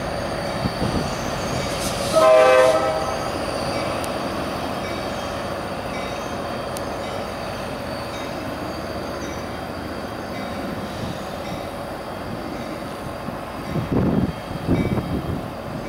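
Tri-Rail commuter train running away along the track with a steady rumble, its horn giving one short blast a little after two seconds in. A few low thumps near the end.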